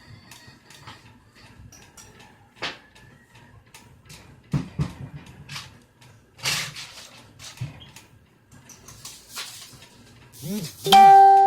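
Small clicks and knocks of tools and metal parts being handled on a lithium battery pack, then near the end a loud metallic strike that rings on with a steady tone.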